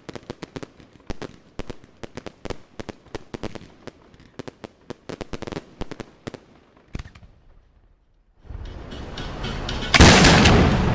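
Fireworks going off: a rapid string of sharp cracks and bangs for about seven seconds, then a brief lull. A denser, steadier noise sets in about eight seconds in, with one loud bang about ten seconds in.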